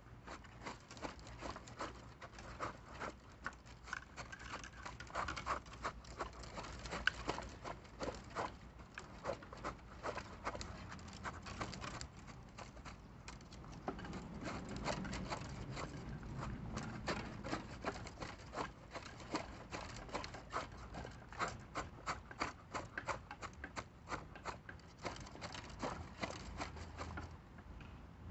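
Quick, irregular scraping and gritty patter of dry concrete mix and soil being worked in around the base of a wooden fence post.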